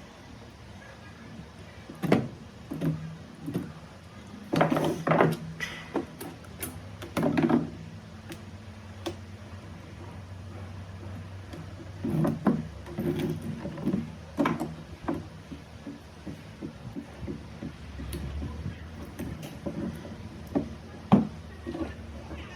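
Irregular knocks and short clatters of hard objects being handled, over a low steady hum.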